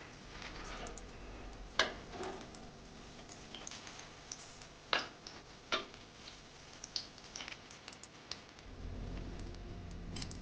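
Scattered light clicks and knocks of kitchen food preparation, with a few sharper knocks about two, five and six seconds in.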